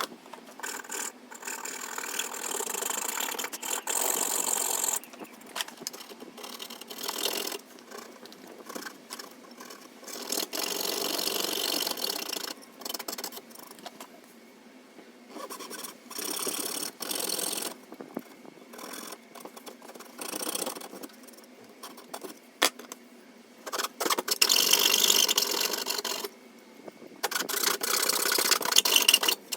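Woodworking tools working on wood in short, start-stop bursts of a few seconds each, with scraping and machine-running sounds and abrupt breaks between them.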